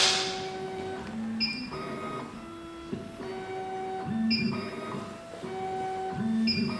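SEC-E9 key cutting machine cutting a Toyota TOY43 key blank: its motors hold steady whining tones that change pitch as the carriage steps, in a pattern repeating about every two and a half seconds. There is a sharp click at the very beginning.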